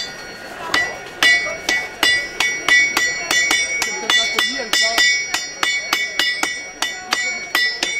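Several blacksmiths striking a workpiece on an anvil in turn with sledgehammers. They make a fast, even rhythm of ringing metallic blows, about four a second, starting about a second in.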